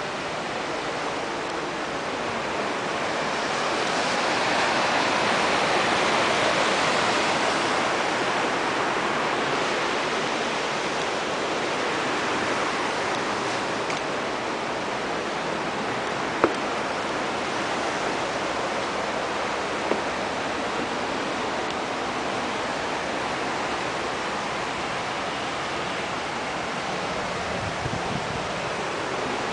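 River rapids rushing steadily, a continuous hiss of water that swells louder a few seconds in. Two short knocks sound in the middle.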